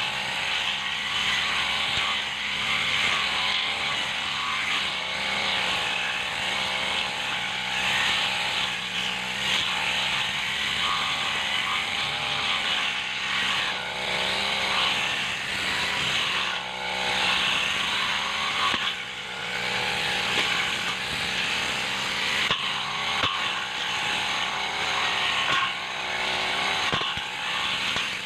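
Backpack brush cutter's two-stroke engine running hard while its cutting head slashes through grass and weeds. The engine note swells and dips repeatedly as the head sweeps into and out of the vegetation.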